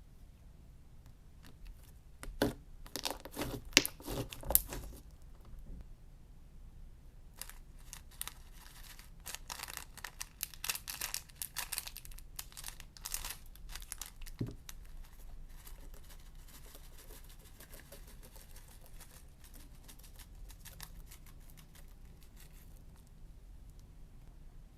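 Slime being stretched and squeezed by hand, with dense crackling and popping. The crackling comes in two spells, a short loud one and a longer one, then fades to faint handling.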